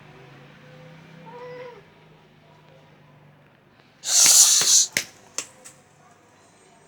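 Cats fighting: a low, drawn-out growl with a short yowl, then about four seconds in a loud hiss and spit, followed by three short spits.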